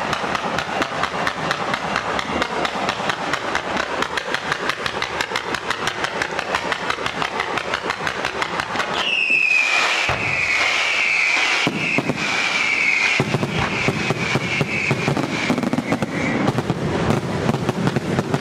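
Fireworks display: a dense, rapid string of small bangs and crackles throughout. From about halfway through, high whistles join in, sliding slightly down in pitch, then fade out a couple of seconds before the end.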